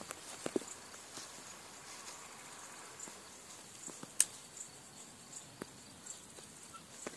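Faint outdoor meadow ambience with insects chirping in short, high, irregular chirps, and a few sharp clicks, the loudest about four seconds in.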